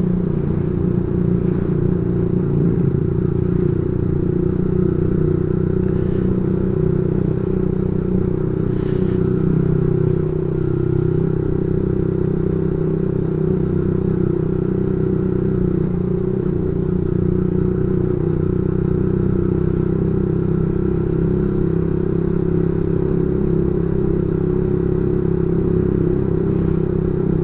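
Yamaha Vixion's 150 cc single-cylinder four-stroke engine running at a steady cruise, fitted with a non-standard exhaust, its note holding even with no revving.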